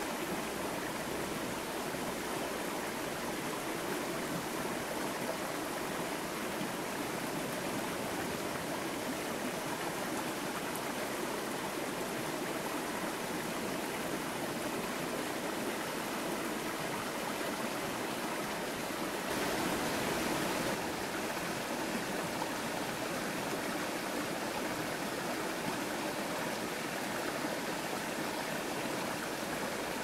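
Steady rushing of running water, an even hiss with no pauses, swelling briefly louder about two-thirds of the way in.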